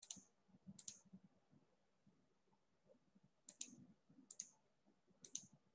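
Faint computer mouse clicks, each a quick double click, about five times with gaps of up to two and a half seconds.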